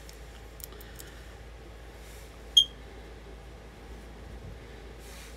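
A makeup sponge dabbing foundation on the cheek, barely audible over quiet room tone, with a few faint clicks in the first second. A single short, high-pitched beep sounds about two and a half seconds in.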